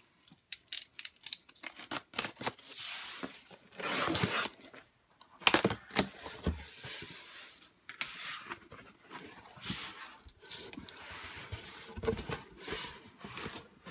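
A taped cardboard shipping box being opened by hand: packing tape ripping in several long pulls, with cardboard flaps scraping and knocking in between.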